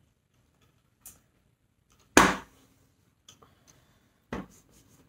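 A clothes iron working on a damp pressing cloth laid over a diamond-painting canvas. A sharp noise comes about two seconds in and fades over about half a second, and a shorter, duller knock follows a couple of seconds later, with a few faint ticks of handling between.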